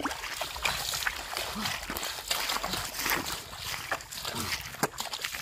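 Shallow, muddy pond water splashing and sloshing irregularly as hands grab at a fish thrashing in it.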